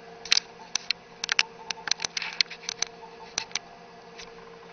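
Apple 20-megabyte external hard drive seeking as the Macintosh Plus boots and loads its system: a quick, irregular run of about twenty clicks over some three seconds, over a steady hum.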